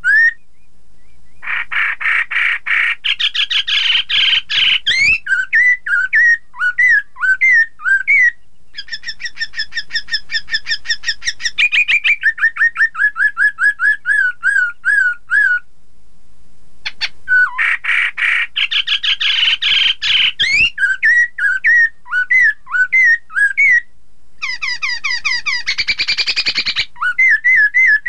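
Black-throated laughingthrush (Poksay Hongkong, Garrulax chinensis) singing loudly: long runs of fast, repeated whistled notes mixed with denser chattering phrases, broken by a few brief pauses.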